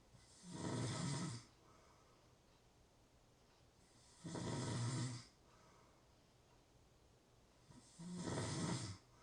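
A person snoring: three snores about four seconds apart, each lasting about a second.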